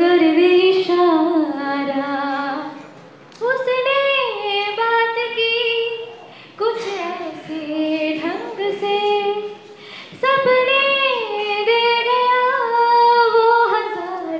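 Women singing a song into microphones, in held, gliding phrases with short breaks about every three to four seconds.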